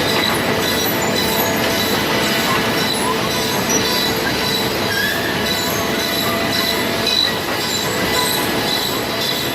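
Sawmill machinery running steadily: a dense mechanical noise with thin, steady high-pitched whining tones laid over it.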